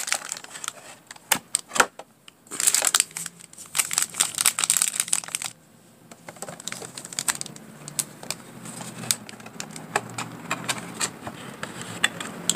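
Foil trading-card pack wrappers crinkling and clicking as a stack of packs is pulled from the box and handled. It comes in dense bursts in the first half, then thins to scattered ticks over a faint low hum.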